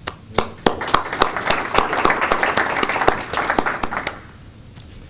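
A small audience applauding. A few separate claps open it, it fills out into steady clapping within a second, and it dies away about four seconds in.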